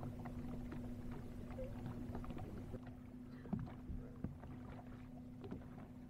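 Small boat motor running steadily while trolling, a constant hum, with a few light knocks, the loudest about three and a half seconds in.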